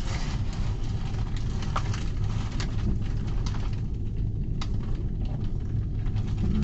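Close-miked chewing of a fried bologna sandwich on a bun, with wet smacking and scattered sharp mouth clicks over a steady low hum.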